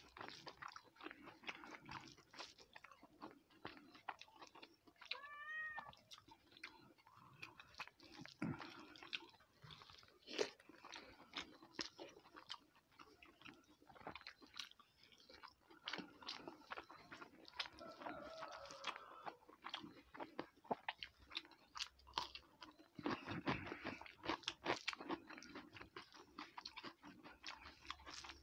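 Close-miked chewing of a person eating rice and curry by hand, a stream of small wet clicks and mouth noises picked up by a clip-on microphone. A brief high, wavering call comes about five seconds in.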